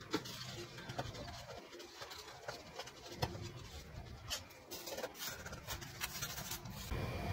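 Faint, scattered light clicks and scratches of tools being handled over a laptop motherboard. A steady low rumble comes in near the end.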